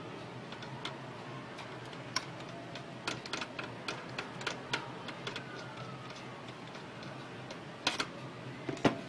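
Irregular clicks and light taps from hands working on a Canon G2000 inkjet printer during repair, densest in a cluster about three seconds in and again near the end, over a steady low hum.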